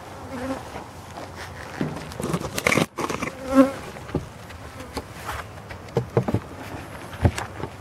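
Honeybees buzzing close to the microphone around an open hive as they come to a fresh sugar, honey and lard feed, with brief passes of individual bees, the clearest about halfway through. Scattered knocks and scrapes from the wooden hive box being handled.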